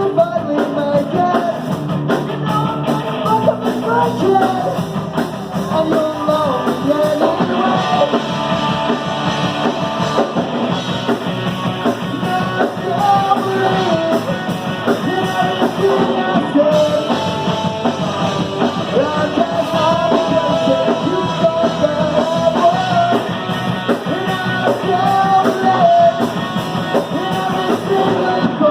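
A live rock band playing loudly, with singing over electric guitar and drums.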